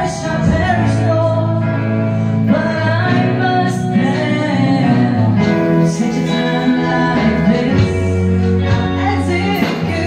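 A woman sings a gospel song into a microphone over amplified instrumental accompaniment, with held notes underneath the melody.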